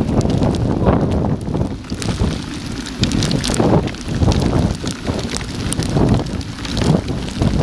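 Storm wind buffeting a Garmin VIRB action camera's microphone in strong gusts, with scattered sharp ticks of rain striking the camera.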